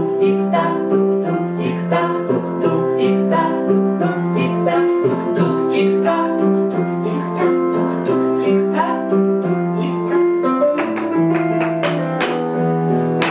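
Music: a string instrument strummed in a quick, steady rhythm over held notes.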